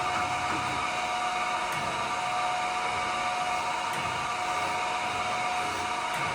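Chevalier FSG-3A1224H hydraulic surface grinder running through an automatic down-increment cycle: a steady whine and hiss of the spindle and hydraulics as the wheel takes a one-thou cut across the part, with a faint tick every two seconds or so.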